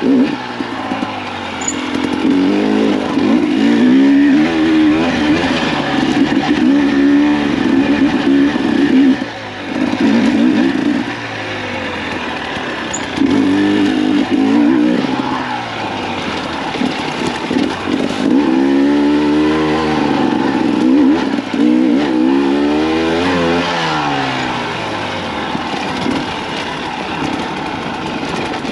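Husqvarna TE300 two-stroke dirt bike engine being ridden hard, revving up and dropping back again and again as the throttle is worked and gears change, with a short lull about nine seconds in.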